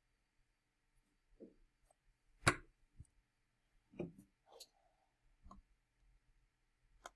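A few faint, scattered clicks and small knocks at a computer desk. The sharpest and loudest comes about two and a half seconds in, with another sharp click near the end.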